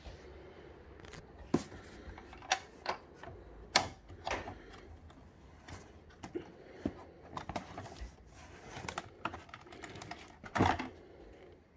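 Irregular clicks and knocks from an in-ceiling speaker with a perforated grille and its cardboard box being handled, with the loudest knock about ten and a half seconds in.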